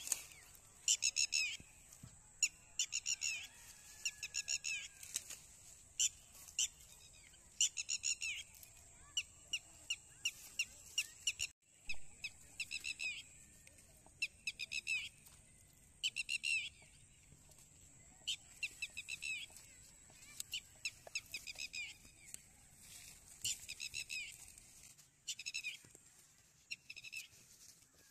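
Small bird chirping in short bursts of rapid, high notes, repeated every second or so, over a faint steady high tone.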